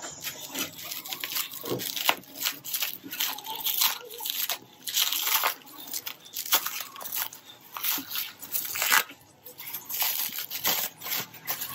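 Plastic bubble wrap being cut with scissors and pulled open by hand: irregular crinkling and crackling with many sharp snaps.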